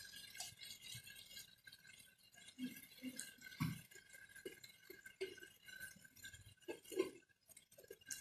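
Faint, scattered light clinks and taps of kitchen utensils as spices are added to the pan, over a faint steady high hum.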